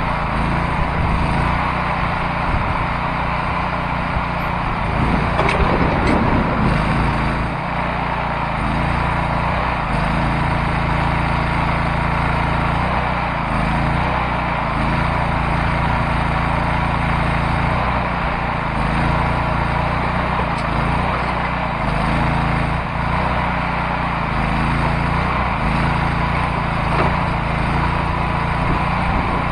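The backhoe's engine running steadily, its note shifting and dipping now and then.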